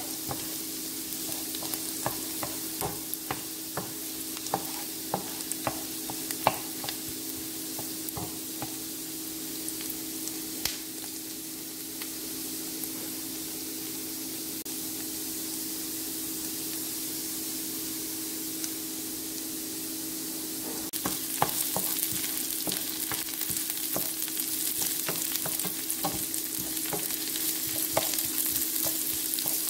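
Diced onion sizzling in hot oil in a nonstick frying pan, stirred with a wooden spatula that clicks and scrapes against the pan in the first several seconds. About two-thirds of the way through the sizzle and stirring grow louder as green pepper strips go into the pan.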